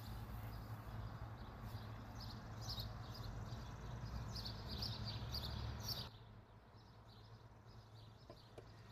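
Small birds chirping in short repeated calls over a low steady outdoor rumble, cutting off suddenly about six seconds in. After that there is quiet room tone with a few faint taps near the end, as tomato slices drop into a plastic blender jar.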